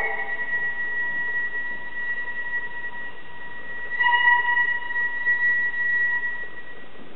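Gagaku court music: a wind instrument holds one long, high, steady note, which swells again about four seconds in and stops shortly before the end.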